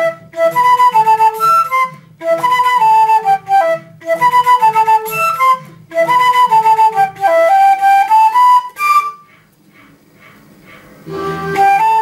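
Concert flute playing a lead melody in short repeated phrases over an electronic backing track with a steady low pulse, about four beats a second. About nine seconds in, the flute and beat drop out briefly, and the backing swells back in near the end.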